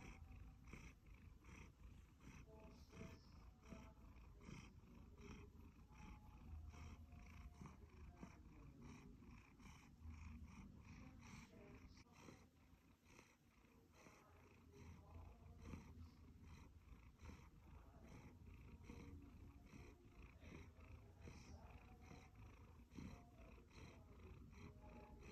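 A Siberian Forest cat purring faintly and steadily, pulsing about twice a second, a content purr while it is scratched under the chin.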